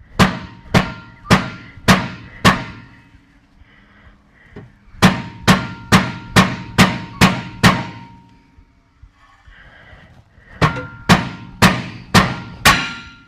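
Hammer blows on steel, each with a short metallic ring, in three runs of five to seven blows at about two a second: a seized part on the car's rear hub assembly being knocked loose.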